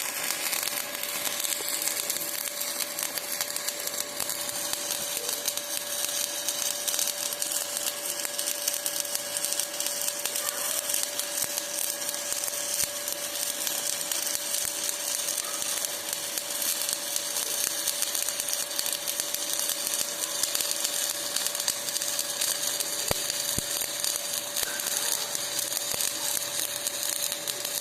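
Stick (shielded metal arc) welding: the electrode's arc crackling and hissing steadily while a third filler pass is laid into the joint, with a steady hum under it.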